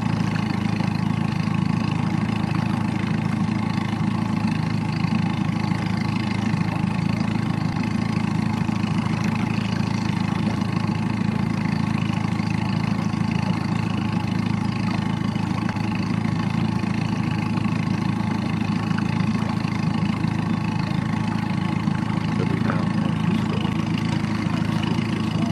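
A small boat's outboard motor idling steadily, an even, unchanging engine hum.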